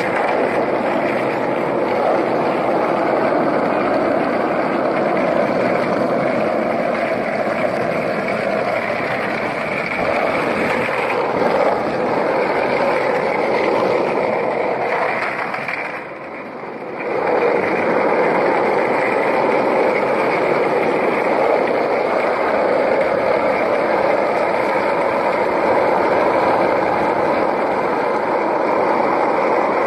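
Skateboard wheels rolling on asphalt: a steady rolling rumble that dips briefly about halfway through.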